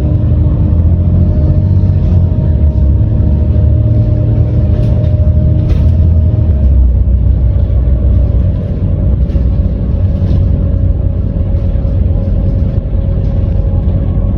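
Volvo B7TL double-decker bus on the move, heard from on board: a steady low rumble from the engine and drivetrain, with a steady whine from the Voith automatic gearbox and a few light rattles.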